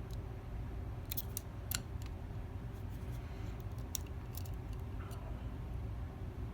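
Small, sharp metallic clicks and ticks of a gem pick probing the pins inside a Mako 227 lock, in scattered clusters about a second in and again around four seconds, over a steady low hum.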